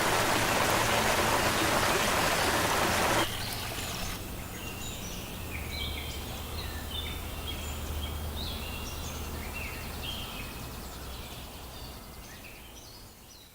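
Creek water rushing steadily, cutting off abruptly about three seconds in. Then songbirds chirping and calling over a quieter background with a low hum, all fading out near the end.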